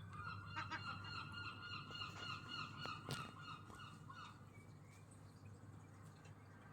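Gull calling in a long run of rapid repeated notes for about four seconds, faint, with a single sharp click about three seconds in.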